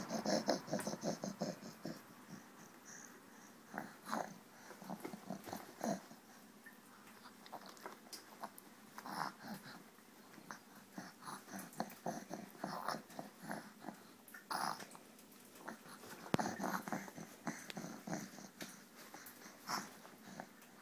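A baby's breathy grunts and huffs while eating from a spoon, in short irregular bursts, with a quick run of them at the start.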